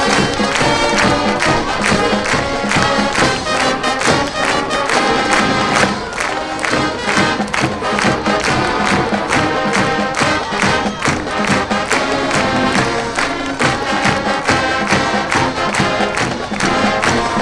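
Marching band playing full out, with brass and a drumline keeping a steady, regular beat.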